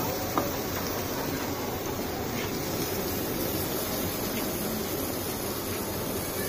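Steady hiss of a grill's infrared gas burners running, with a single sharp click about half a second in.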